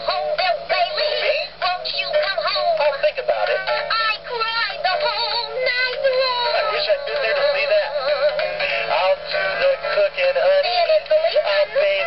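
Animatronic singing-parrot wall plaque playing its one song routine: synthesized, high-pitched parrot voices singing over a backing track, thin-sounding with little bass.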